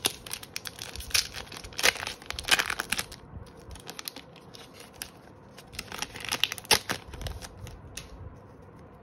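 Foil booster-pack wrapper crinkling and tearing as it is ripped open. The crackling comes in two bouts: a long one over the first three seconds, then a shorter one around six to seven seconds in, as the wrapper is pulled apart.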